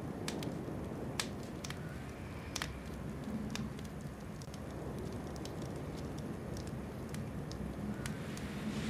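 Low, steady background rumble with scattered faint clicks and crackles at irregular intervals.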